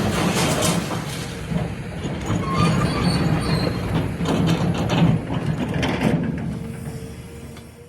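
A heavy mechanical rumble and clatter of metal, with faint high squeals, fading away over the last couple of seconds.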